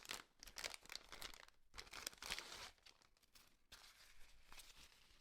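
Faint, irregular rustling and crinkling from handling the RC skydiver's fabric jumpsuit, with a sharp click at the very start.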